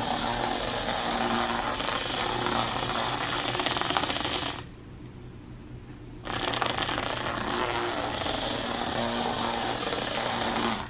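HexBug robotic mouse toy running across the bottom of a hard plastic basket, its small motor and wheels giving a steady mechanical buzz against the plastic. It stops for about a second and a half midway, then starts up again.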